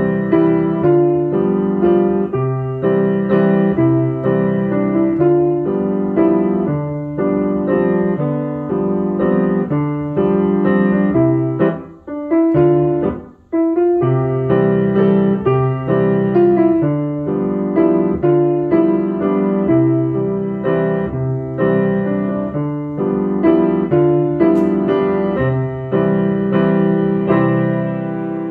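Piano playing a simple chordal accompaniment in 3/4 time in C major, built on the basic C and G7 chords, with a short break about halfway through.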